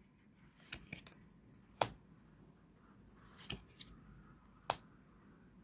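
Game cards being handled: a card slid off the top of a stack held in the hand, with a soft rustle of card stock and two sharp snaps, one about two seconds in and one near the end.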